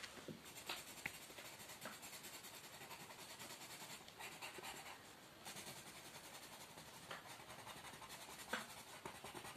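Red coloured pencil shading on paper in quick back-and-forth strokes, a faint steady scratching with a short pause midway.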